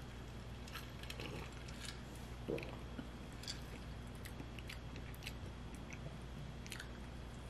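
A person drinking from a large water bottle: quiet gulps and small mouth and bottle clicks, mostly in the first half, over a steady low hum.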